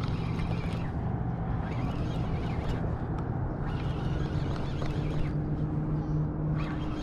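Steady low engine hum, with a second, higher tone joining about four seconds in, over outdoor background noise.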